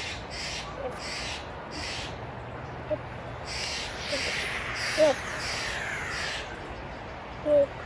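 Harsh bird calls repeated about twice a second in two runs, some of them falling in pitch. Short, louder pitched blips come about five seconds in and near the end.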